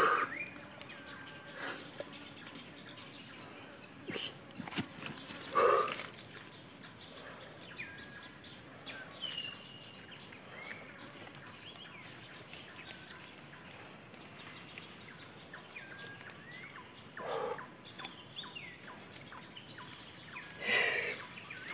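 Steady high-pitched insect drone with scattered short bird chirps over it. A few brief louder noises stand out, about a second in, near six seconds, near seventeen seconds and near twenty-one seconds.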